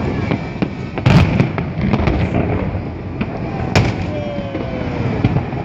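Fireworks salute bursting: two loud bangs, about a second in and again near four seconds, with smaller scattered pops between them.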